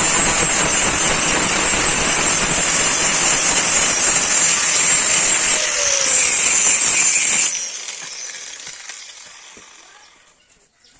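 Grinder working a steel knife blank: a loud, steady grinding noise with a hissing high edge that stops suddenly about seven and a half seconds in, then fades away.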